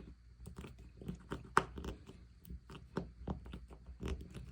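A screw being turned in by hand with a screwdriver: irregular creaks and clicks as it bites into the mounting, with one sharper click about a second and a half in.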